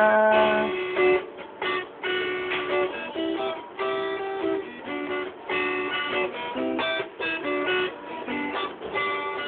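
Instrumental guitar passage of a song: strummed guitar chords played over and over, after a sung note trails off in the first second.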